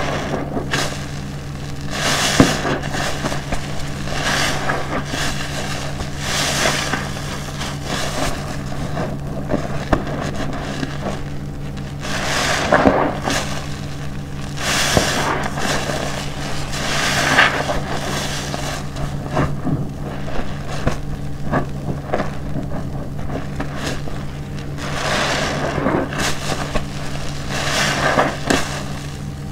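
Large car-wash sponge squeezed and kneaded by hand in a basin of thick detergent lather: wet squelches and the crackle of popping foam, swelling with each squeeze every two or three seconds.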